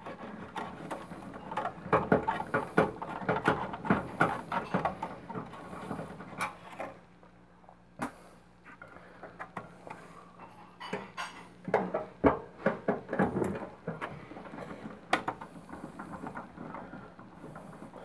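Phillips screwdriver backing screws out of a microwave's sheet-metal magnetron mount, with the magnetron being handled: irregular clicks, scrapes and small metallic rattles in clusters, with a few sharper single clicks.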